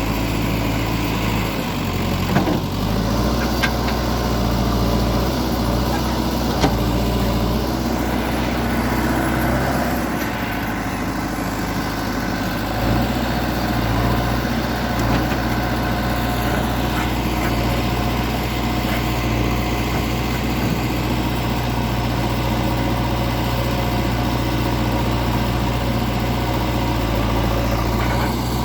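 Backhoe loader's diesel engine running steadily, its engine speed dropping about ten seconds in and picking up again about three seconds later. There are a few sharp knocks in the first seven seconds.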